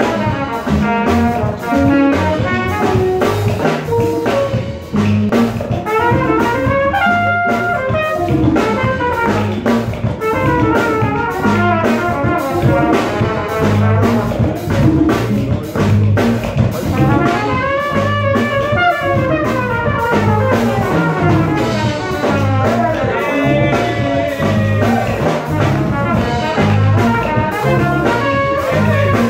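Live band playing, with a horn section of trumpet, trombone and saxophone carrying gliding melodic lines over drum kit, electric bass and djembes with a steady groove.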